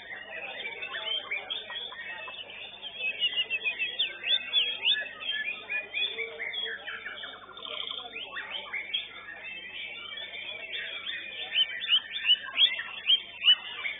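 White-rumped shamas singing in a songbird contest: many birds' rapid whistles, chirps and trills overlapping in a dense chorus, with a fast trill about halfway and loud sharp notes near the end.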